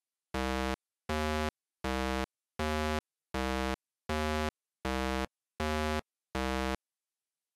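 Chiptune-style synthesized sound effect: a low, buzzy 8-bit tone pulsing about every three quarters of a second, nine identical pulses that stop near the end.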